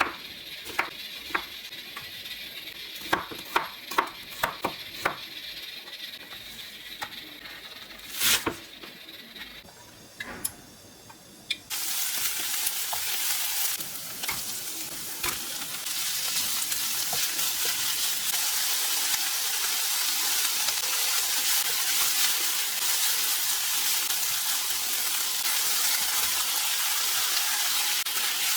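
A handful of sharp clicks and knocks from kitchen utensils, then about twelve seconds in, food hits a hot oiled pan and starts sizzling. The steady frying hiss carries on while it is stir-fried.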